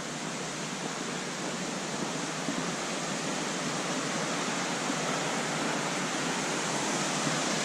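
Steady rush of the Gooseberry River's upper falls, an even roar of falling water that grows slowly louder.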